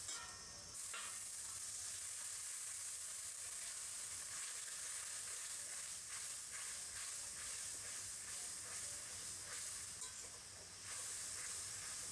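Spice paste sizzling in hot oil in a metal kadai while a metal spatula stirs and scrapes it, a little water just added to the frying masala.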